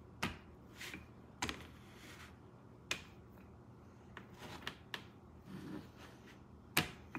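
Wooden rolling pin being rolled over cookie dough on a metal baking pan, with a handful of sharp clicks and knocks a second or more apart as the pin and its handles clack against the pan, the loudest near the end.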